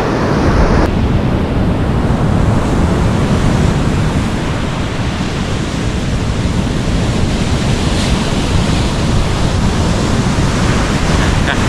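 Ocean surf with wind buffeting the microphone: a steady, loud rushing noise.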